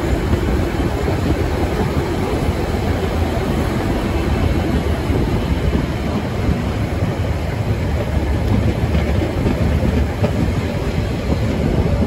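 Metre-gauge passenger train running along the track, heard from a coach's open end platform: a steady rumble of wheels on the rails.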